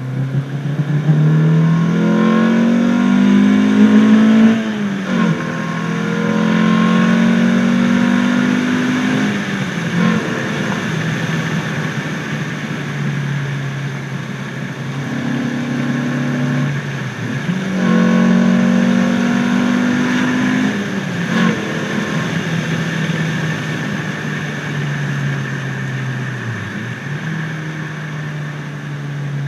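Renault Clio RS 172's 2.0-litre four-cylinder engine breathing through an open pod air filter, accelerating hard. The revs climb and fall back at each of several gear changes, then hold fairly steady near the end.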